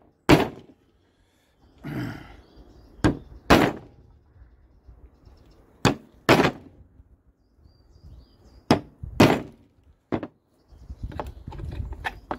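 Claw hammer striking a bolt set in sheet gasket paper on a wooden workbench, tapping through the paper to punch bolt holes for an engine crankcase door gasket. About eight sharp blows, mostly in pairs a couple of seconds apart, with handling noise between them.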